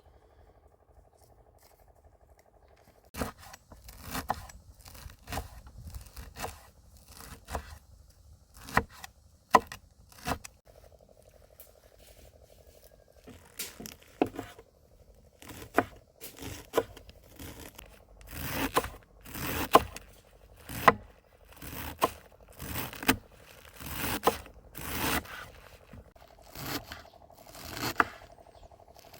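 Repeated short scraping strokes from food preparation, roughly one a second, starting about three seconds in and growing stronger and closer together in the second half.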